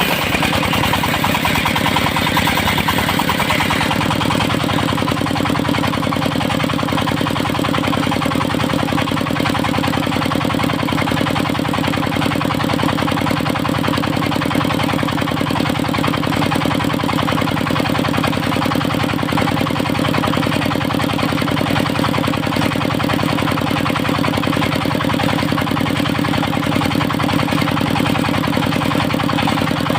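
Engine of a portable circular-saw sawmill running steadily, with a brighter hiss in the first few seconds that fades out.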